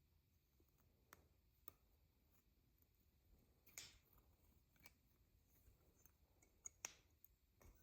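Near silence with scattered faint small clicks and a brief scrape, about four seconds in: oil control rings being worked onto a piston by hand.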